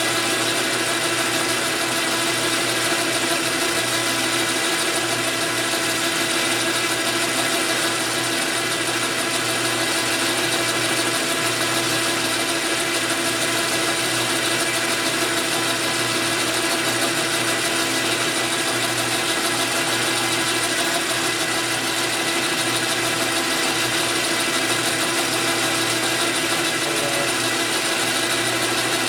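JET metal-turning lathe running steadily, its motor and geared headstock giving an even mechanical hum with several steady tones, as it turns a test bar between centers.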